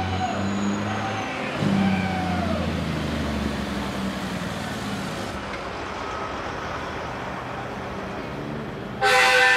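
Diesel semi truck driving past at parade pace, its engine running loudest as it passes and then fading away. Near the end a loud multi-tone air horn blast begins.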